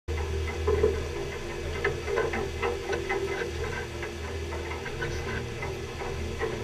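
Pole-and-line tuna fishing boat's machinery droning steadily, with irregular clicks and knocks on deck scattered through it.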